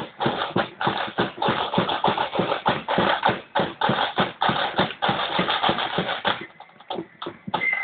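Marching band's drums beating a fast, steady rhythm that stops about six and a half seconds in; steady high notes start up near the end.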